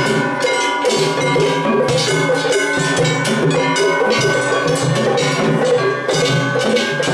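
Festival-float ohayashi: metal hand bells (kane) clanging in a fast, unbroken rhythm over taiko drum beats, loud and close.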